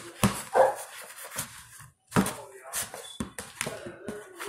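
Butter slime being squished and kneaded by hand in a plastic bowl: irregular wet squelches and clicks, a few of them louder.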